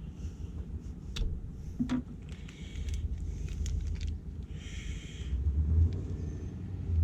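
Handling noises from work on a car battery's terminals: two sharp clicks followed by rustling, scraping stretches. Under them runs a steady low rumble, like wind on the microphone.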